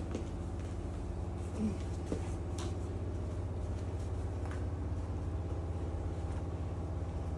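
Steady low background hum with a few faint clicks.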